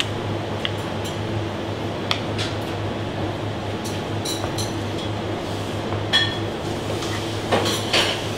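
Steady low hum of kitchen ventilation, with a filleting knife tapping and scraping on a plastic cutting board as plaice fillets are cut. A few light metallic clinks come about six and eight seconds in.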